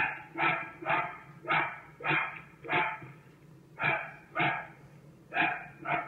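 A dog barking repeatedly, about ten barks at roughly two a second, with short pauses between the runs. A steady low hum lies beneath.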